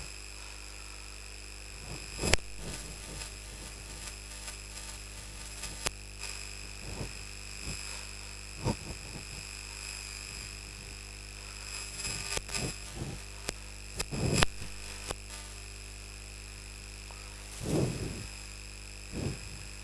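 Whiteboard being wiped clean with an eraser: scattered rubbing strokes and light knocks, a cluster of them about two-thirds of the way through and two louder rubs near the end, over a steady electrical hum with a high whine.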